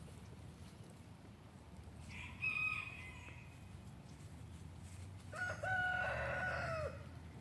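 Olive Egger rooster crowing once, a long cock-a-doodle-doo about five seconds in that holds level and drops at the end. A shorter, higher-pitched call comes about two seconds in.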